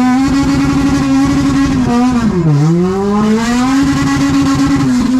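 Toyota 2ZZ four-cylinder engine revved hard and held at high revs. About two and a half seconds in the revs drop sharply, then climb straight back and hold again.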